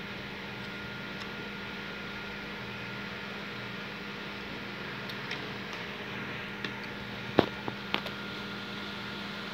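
Metal spoon and fork clinking against a ceramic bowl a few times near the end, over a steady background hum.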